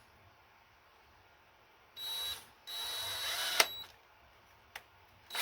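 Electric hand drill run in short trigger bursts while drilling out a broken bolt in an engine block, its motor pitch shifting under load, with a sharp click as one burst ends. The bit is grabbing on something in the bolt.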